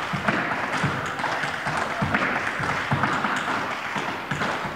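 Tap shoes striking a wooden floor: a fast, unbroken stream of metal taps.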